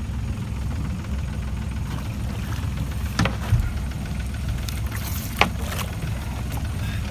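Boat engine idling with a steady low rumble, with a few short sharp knocks or clicks around the middle.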